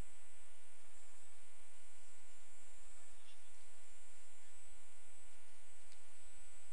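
Steady electrical hum and buzz with a faint high whine. No distinct game sounds stand out.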